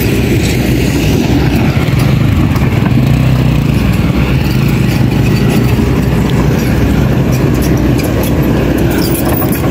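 Motorcycle engine running steadily at low speed on a rough dirt track, a continuous low drone with road and wind noise over it.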